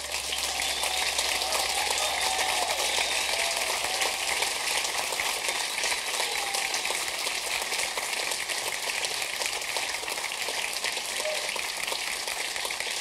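Theatre audience applauding steadily after a song ends, with a few cheers in the first few seconds.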